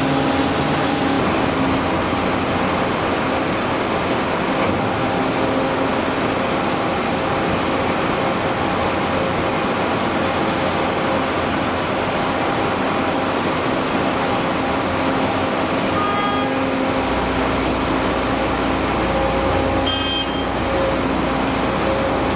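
Steady machinery noise: an engine or motor running continuously with a constant hum, a deeper rumble joining about two-thirds of the way in.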